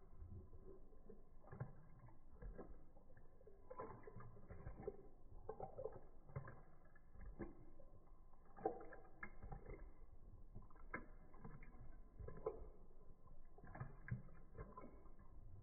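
Faint wet lapping of a corgi puppy's tongue in milk in a ceramic bowl, slowed down, heard as irregular clicks and drawn-out slurping strokes.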